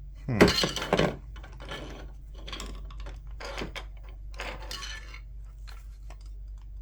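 Plastic headset parts clattering and snapping as they are pulled apart and handled. A loud burst of sharp knocks comes about half a second in, then quieter rattling and handling noises.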